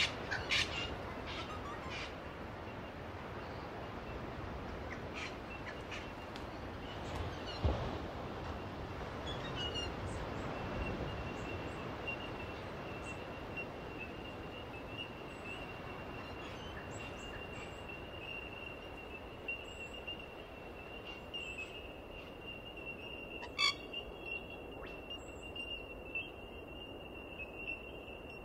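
Outdoor ambience: a steady, even hiss of open-air noise with a few short, sharp bird-like calls near the start and again past the middle, and a thin steady high whistle coming in about a third of the way through and holding on.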